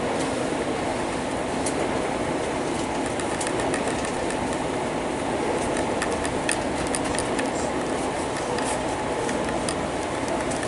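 Steady rumble of a bus driving on a wet highway, heard from inside the cabin: engine and tyre noise on the wet road, with scattered light ticks.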